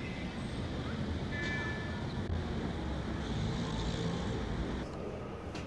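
Steady low rumbling background noise, with faint brief tones about a second and a half in.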